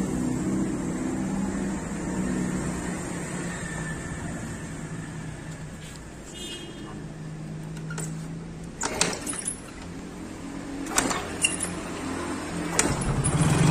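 Steady low hum of an idling engine, with a few sharp clicks and rattles of wires and metal connectors being handled, one cluster about 9 seconds in and more near the end.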